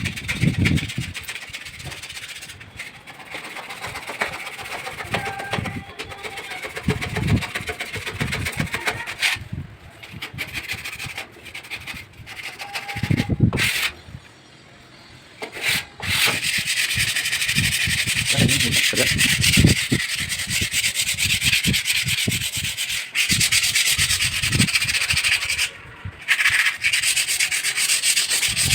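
Wood being sanded: uneven rubbing strokes with pauses at first, then from about halfway a steady sanding hiss that stops briefly near the end.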